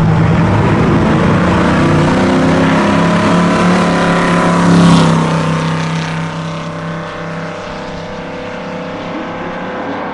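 Drag-racing Ford pickup truck's engine at full throttle as it accelerates down the strip. It is loudest as it passes about five seconds in, then fades as it pulls away.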